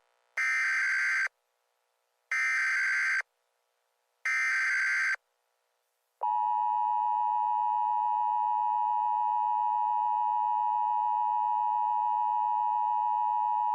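Emergency Alert System tones: three short bursts of digital SAME header data, each about a second long and two seconds apart. About six seconds in, the steady two-tone EAS attention signal begins and holds without a break.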